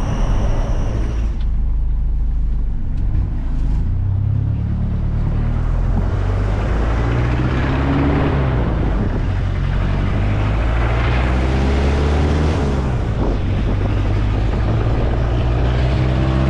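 Motor vehicle's engine running while driving, its pitch climbing several times as it accelerates through the gears, over steady road noise, heard from inside the vehicle.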